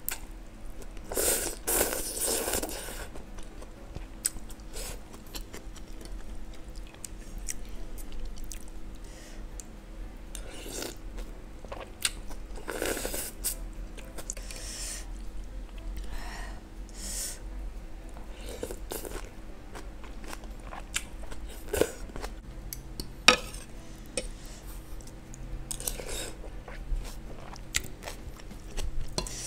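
Close-miked eating sounds of a person having instant noodle soup: a loud slurp of noodles about a second in, then chewing and further slurps, with short clinks of a metal spoon and fork against a ceramic bowl.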